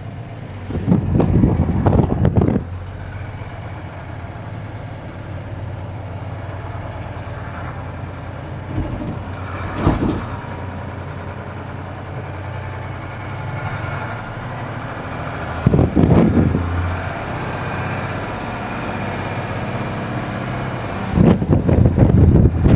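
Mercedes-Benz Unimog U2450 6x6 truck's diesel engine running steadily while crawling over rough terrain. Four louder surges of noise come and go: about a second in, near the middle, about two-thirds through and near the end.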